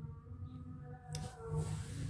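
Soft background music of steady held notes, with a sharp click a little over a second in followed by a brief rustle.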